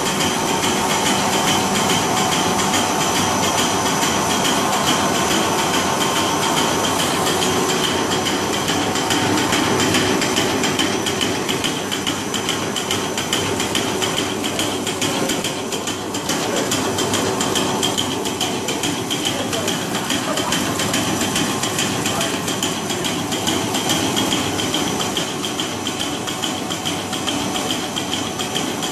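Bread snack food machine running steadily: a continuous mechanical clatter of rapid ticks over a steady motor whine.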